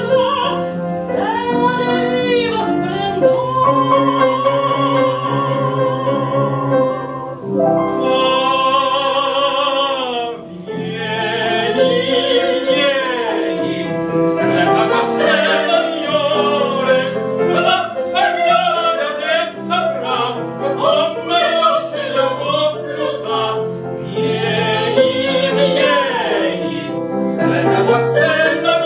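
Operatic tenor and mezzo-soprano singing a Neapolitan song as a duet, taking turns on phrases, with vibrato, over piano accompaniment.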